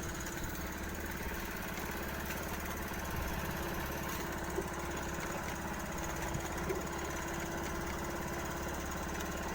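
A boat engine running steadily at an even, unchanging pace.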